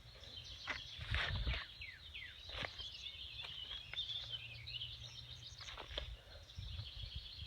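Birds chirping and singing, with short falling calls and quick twittering. About a second in come a few thuds and rustles of footsteps climbing over a fallen tree.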